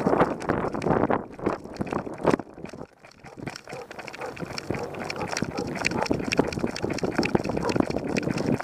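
Camera noise from a camera strapped to a German Shepherd's harness as the dog runs: tall grass brushing past and bumping for the first couple of seconds. After a short lull, a steady, regular patter of its trotting on a gravel path, with the harness jostling.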